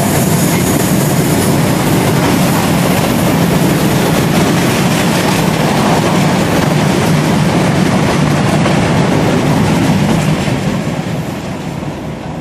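Freight train of bulk powder tank wagons passing close by: a steady loud rumble and rattle of wagon wheels on the rails, fading away from about ten seconds in as the last wagon goes past.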